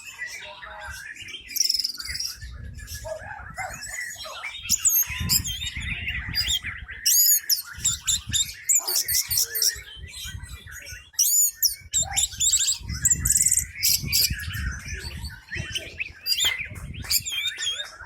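Orange-headed thrush singing a long, varied song of rapid high whistles, trills and chirps in quick phrases. A low rumbling noise sits under parts of it.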